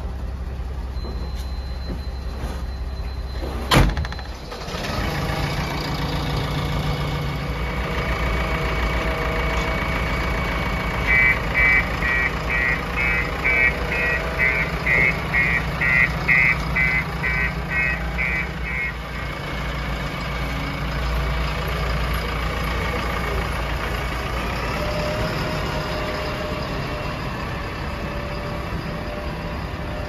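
JCB 3DX backhoe loader's diesel engine running steadily. In the middle, a reversing alarm beeps about twice a second for some eight seconds. A single sharp click comes about four seconds in.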